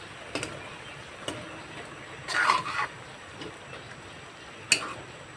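Steel spatula stirring beef and bottle gourd leaves in a metal wok, with a few sharp clinks against the pan and a longer scrape about two and a half seconds in, over a steady hiss.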